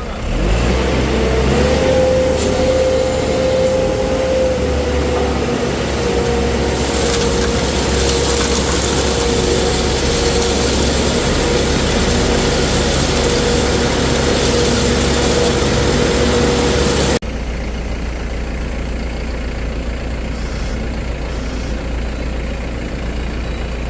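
A heavy engine running steadily with a steady whining tone over it. About 17 seconds in, the sound cuts off abruptly into a quieter, steady rumble.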